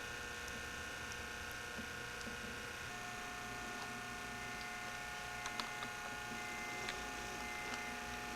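Quiet indoor room tone: a steady electrical hum made of several held tones, with a few faint clicks about midway and near the end.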